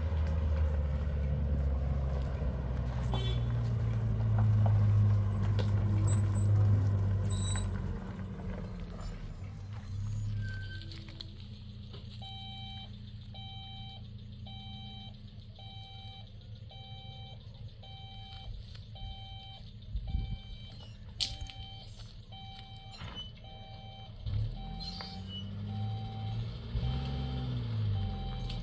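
A heavy vehicle's engine running, loud at first and then quieter. A reversing alarm then beeps about once a second on one steady pitch, and near the end the engine revs up and down.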